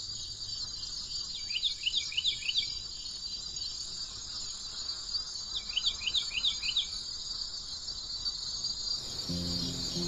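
Northern cardinal singing two short runs of quick down-slurred whistled notes, one about a second and a half in and another about five and a half seconds in, over a steady high insect drone. Music comes in near the end.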